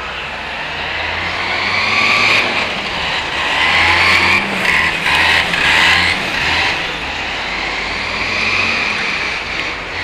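City street traffic heard from a moving bike: motor vehicles passing close by, loudest in the middle, over a steady low hum.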